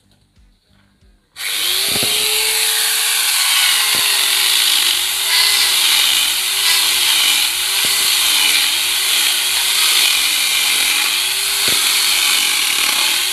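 Electric angle grinder fitted with a chainsaw adapter switches on suddenly about a second and a half in and cuts into a log, the loud motor whine mixed with the rasp of the chain biting through wood. The motor's pitch sags and recovers again and again as the chain takes load in the cut.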